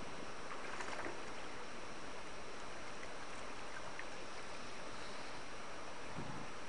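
Steady rush of flowing stream water, with a brief louder splash about a second in.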